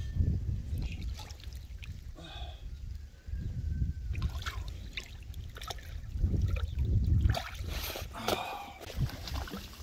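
Wind rumbling on the microphone, with scattered clicks and knocks of handling.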